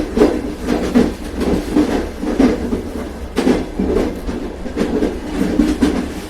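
Train running along the track, heard from inside a passenger carriage: a steady low rumble with irregular clacks and knocks of the wheels over rail joints.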